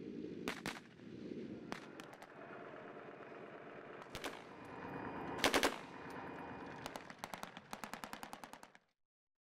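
Machine-gun fire in short bursts over a steady rumble, the loudest cluster about halfway through, then a fast burst of about ten shots a second before the sound cuts off abruptly.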